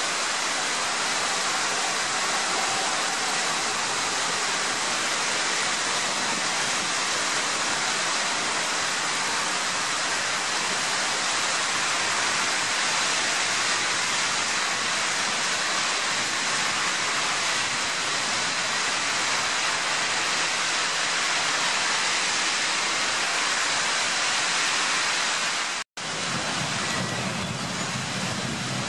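Heavy downpour of rain on a city street: a steady, dense hiss. Near the end the sound breaks off for an instant and returns with a low rumble added under the rain.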